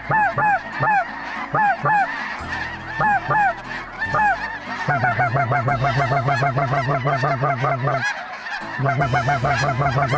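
Snow geese calling in flight, a flock overhead: separate high yelping honks at first, then from about five seconds a dense chorus of many overlapping calls, which breaks off briefly near eight seconds and starts again.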